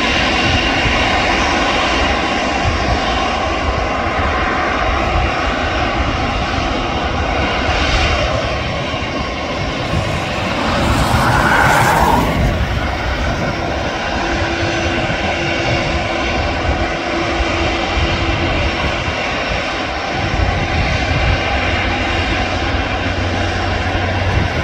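Airliner engines running: a loud, steady noise with a steady whine through it, briefly louder about twelve seconds in.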